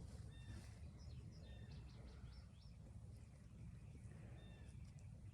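Faint bird chirps, a few short calls scattered through, over a low steady background rumble.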